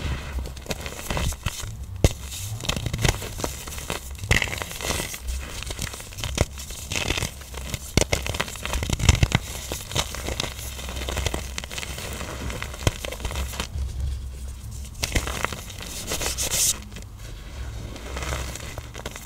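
Hard-pressed black iron oxide blocks being crushed: a dense run of crunches and sharp cracks with a dry, powdery crumbling between them, easing briefly about two-thirds of the way through.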